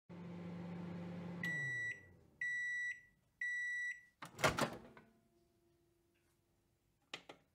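Microwave oven running with a low hum that winds down as the cycle ends, then three evenly spaced high beeps signalling that the cooking is done. A loud clunk follows about four seconds in, and two short clicks come near the end.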